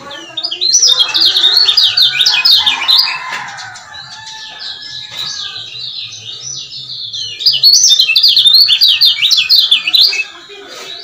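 Male kecial kuning, a white-eye, singing a fast chattering "ciak-ciak" song. It comes in two loud bursts of about three seconds each, one starting about a second in and one about seven seconds in, with softer calls between them.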